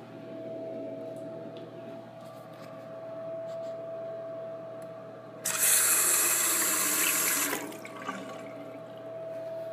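Chrome single-handle bathroom sink faucet turned on about halfway through, water running hard into the basin for about two seconds, then shut off abruptly, over a steady high hum.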